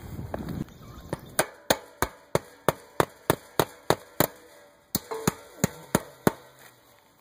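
Claw hammer driving roofing nails through aluminium roof flashing: a quick run of about a dozen sharp strikes, roughly three a second, then a brief pause and five more strikes.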